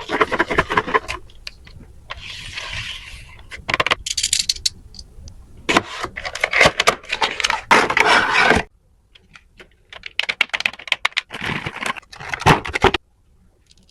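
Blind-box toy packaging being handled and opened close to the microphone: crinkling, crackling wrapping with quick clicks and scrapes, in bursts with short pauses. It stops shortly before the end.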